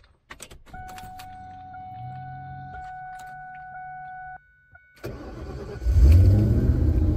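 Key turned to on with a few clicks, then a steady electric whine for about four seconds as the fuel pumps prime. Near the end the 2003 Mustang SVT Cobra's supercharged 4.6-litre V8 cranks briefly, catches and keeps running: its first start on a freshly installed MS3Pro standalone ECU with a base map.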